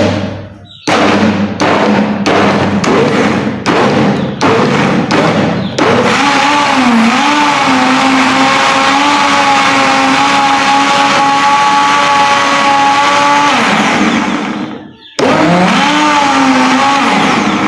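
Electric blender blending aloe vera with water: first pulsed in about eight short bursts, then run continuously for about eight seconds, its motor pitch dipping as it takes the load and then holding steady. It stops and runs again for a couple of seconds near the end.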